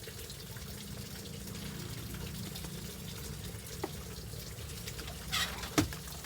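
Water running steadily from a tap, with a few short knocks near the end.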